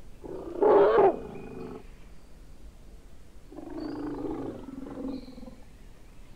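Asian elephant calling twice: a short, loud roar about a second in, then a lower, longer call around four to five seconds in.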